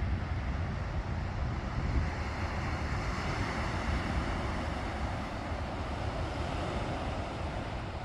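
Wind rumbling on the microphone over a steady hiss of surf washing onto the beach; the hiss swells for a few seconds midway.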